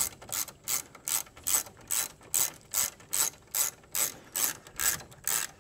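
Hand socket ratchet clicking in a steady rhythm, about two and a half clicks a second, as it runs a 10 mm bolt down into the plastic coolant reservoir's mount, tightened by feel.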